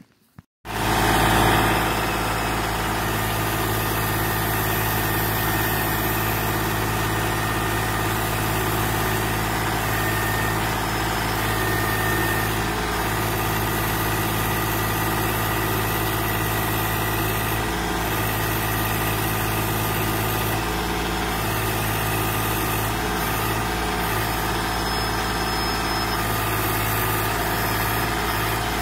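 Kubota compact tractor's diesel engine running steadily while its backhoe digs, with small changes in its note now and then.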